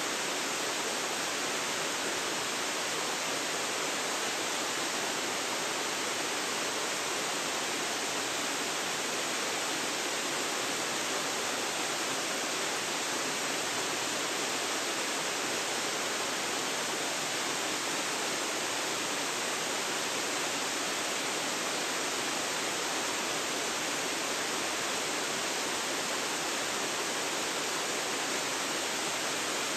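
Waterfall: a steady, unbroken rush of falling water, even in level, heard through a phone's built-in microphone.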